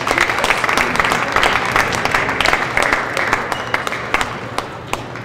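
Spectator applause: many hands clapping with sharp individual claps. It starts suddenly and thins out toward the end.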